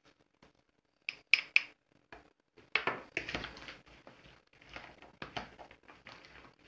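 Three sharp clicks of a garlic press and fork at a plastic bowl about a second in, then hands mixing sliced cucumber salad in the plastic bowl: a steady rustle with many small knocks.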